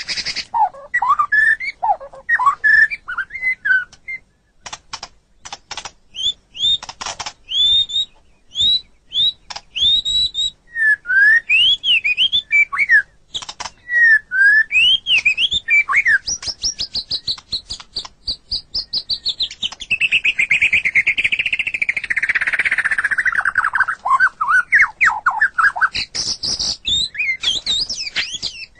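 White-rumped shama (murai batu) singing a varied song: clear whistled notes that rise and fall, mixed with sharp clicking, rattling notes, and a long fast trill that slides downward about two-thirds of the way through.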